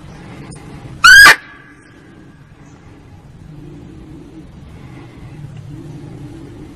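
A single short, loud bark of a muntjac (barking deer, kijang), played as a lure call, about a second in, its pitch rising slightly. A faint steady low rumble lies under it.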